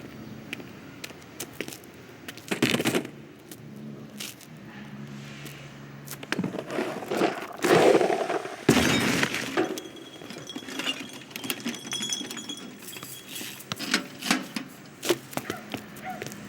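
Film sound-effects track with no music or dialogue: a busy run of assorted foley clatters, knocks and rustles, with a loud burst about three seconds in and the loudest noisy stretch around seven to nine seconds in, then a brief thin high tone held for a few seconds.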